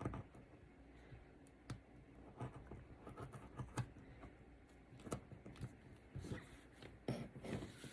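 Faint handling sounds of a leather strap and tools on a workbench: scattered light taps and clicks, roughly one a second, with soft rustling between them.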